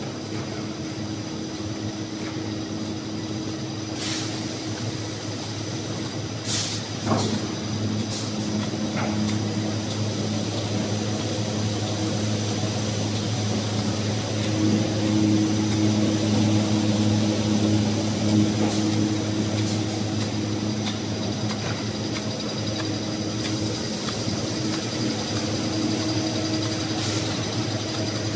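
XY-TQ-A-F automatic toilet paper and kitchen towel production line running: a steady mechanical hum of motors and rollers with a hiss on top. A few sharp clicks and short hisses come between about four and nine seconds in, and the hum grows a little louder midway.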